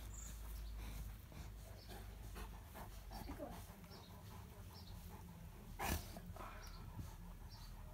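Leonberger dog panting softly, with several faint, short, high squeaks from the puppies and one sharp knock about six seconds in.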